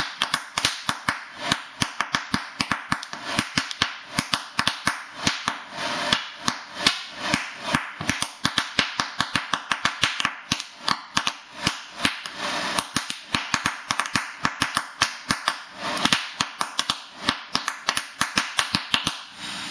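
Oxyhydrogen (HHO) gas bubbles from an electrolysis dry cell igniting one after another as they break the water surface under a gas torch flame: a rapid, irregular string of sharp pops, a few each second, over the steady hiss of the torch.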